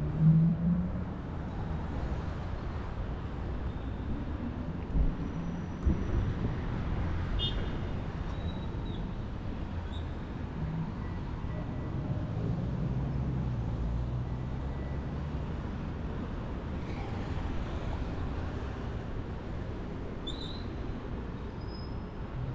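City street traffic noise: a steady rumble of car and bus engines running and passing. There are a couple of dull knocks about five and six seconds in.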